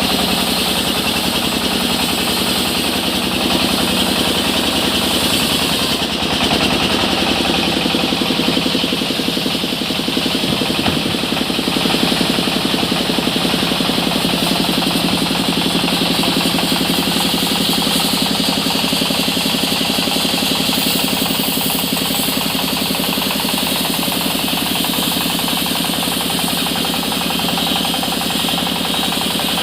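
Sawmill machinery running steadily, an engine-driven saw with a fast, even pulse, working through mahogany timber.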